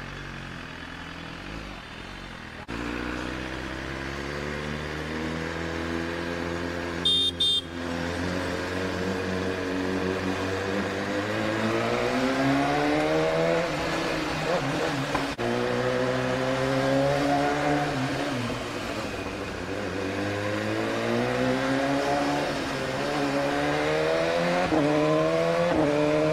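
BMW S1000RR's 1000 cc inline-four on its stock, not-yet-loud exhaust. It runs low at first, then pulls away and revs up and down through the gears at city speed, the pitch climbing and dropping back every few seconds. A brief, loud, high-pitched blip cuts in about seven seconds in.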